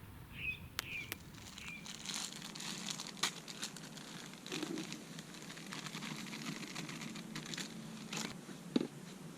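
Fishing gear being unpacked and handled: crinkling, rustling noise with many scattered clicks and a few knocks. A bird chirps a few times in the first two seconds.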